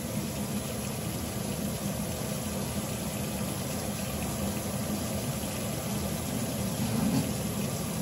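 Steady low mechanical hum of a running machine, even throughout.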